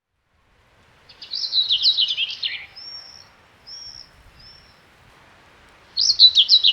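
Songbird singing: a fast warbling phrase, then three short thin whistles, then the warbling phrase again near the end.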